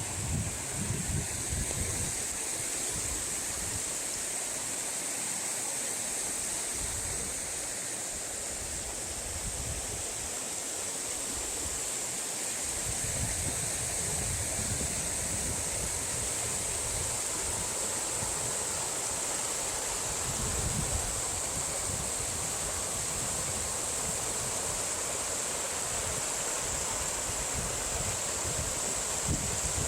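Mountain valley stream flowing in a steady rush, with wind buffeting the microphone in irregular low gusts.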